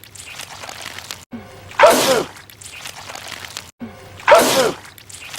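A man sneezing loudly, twice: each time a short rising in-breath, then a forceful "ah-choo" about half a second long. It is the same sneeze repeating about every two and a half seconds.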